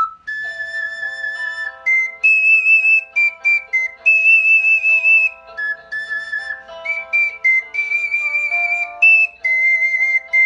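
Pendant ocarina playing a slow melody of clear, high, held notes that step up and down, over a softer backing accompaniment.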